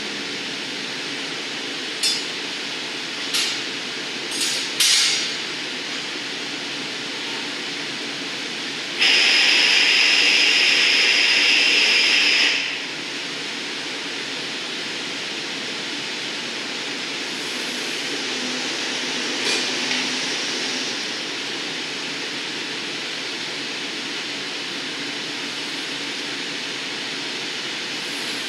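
Steady roar of a glassblowing glory hole's gas burner as a blowpipe is turned in it, with a few sharp metal clinks early on. Near the middle a loud hiss with a high whistle lasts about three and a half seconds, then stops suddenly.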